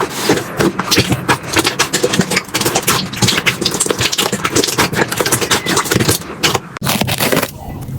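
Slime being squished and worked, making a dense run of sticky crackling and popping clicks, with a short break near the end.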